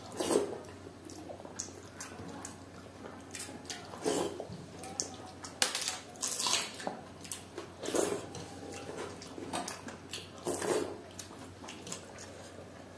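Irregular wet squelching and smacking of hands working and eating watery panta bhat (soaked rice) from steel plates, with chewing and lip smacks.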